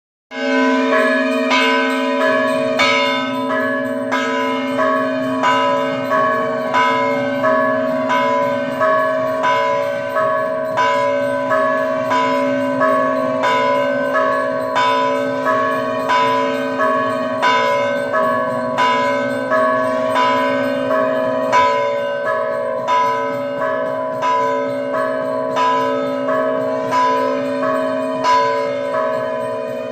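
Large Hindu temple bell rung steadily, struck about once a second, each stroke adding to a continuous ringing hum.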